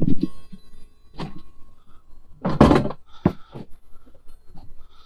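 Wooden grandfather clock case bumping and knocking against a vehicle's cargo area as it is slid in. There are several thumps, the loudest about two and a half seconds in, followed by a sharp knock.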